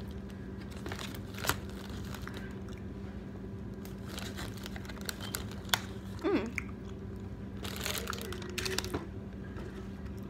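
Scattered crunching and crinkling handling noises with a few sharp clicks, over a steady low hum.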